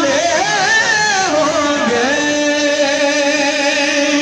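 A devotional naat sung over a public-address system: the voice wavers through an ornamented run, then settles into one long held note from about two seconds in.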